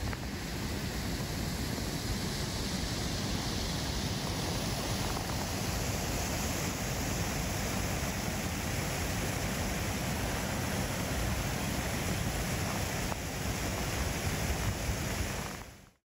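Steady rush of a stream running over rocks between shelves of ice and snow, cutting off sharply near the end.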